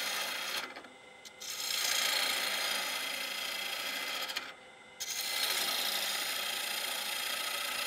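A gouge cutting a spinning walnut blank on a wood lathe, the bevel riding the surface as it takes off shavings: a steady shaving hiss. The cut stops briefly twice, about a second in and again near the five-second mark.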